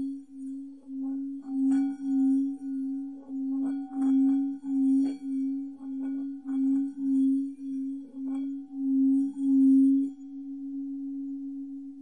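Tibetan singing bowl rubbed around its rim with a mallet, sounding one deep steady tone with a fainter higher overtone, swelling and fading about twice a second, with a faint scraping from the rubbing. About ten seconds in the rubbing stops and the bowl rings on, steadier and quieter.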